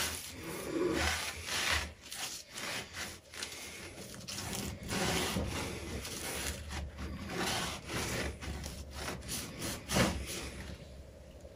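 A cloth rubbing back and forth in quick strokes over a pinball machine's wooden speaker panel around the display opening, wiping off dust and grime, with a single bump against the panel about ten seconds in.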